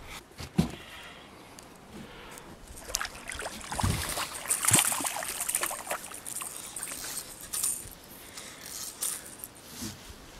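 A hooked fish splashing at the water's surface beside an aluminum boat, in short bursts that are busiest around the middle. Small clicks and knocks are scattered throughout.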